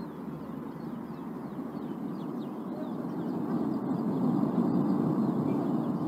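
Steady low rumble of the erupting La Palma (Cumbre Vieja) volcano, growing louder over the last few seconds, with many short high bird chirps over it.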